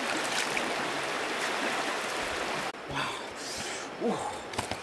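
Shallow river rushing steadily over rocks, cutting off suddenly a little over halfway through to quieter surroundings with a few short knocks.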